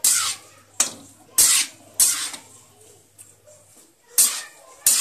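Spatula scraping and pushing grated amla around a kadhai as it fries in ghee. There are six quick scrapes: four in the first two seconds, then a pause, then two more near the end.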